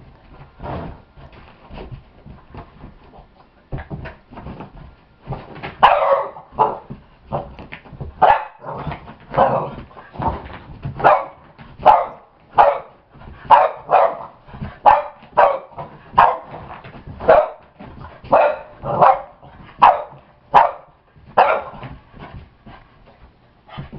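Boston terrier barking over and over at a balloon in play, short sharp barks about one to two a second, starting about six seconds in. Softer knocks and scuffles come before the barking begins.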